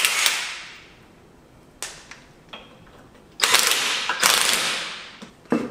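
Impact wrench rattling lug nuts off a car wheel in three bursts, each fading as the nut spins free: one at the start and two back to back about three and a half seconds in, with a couple of light clicks between.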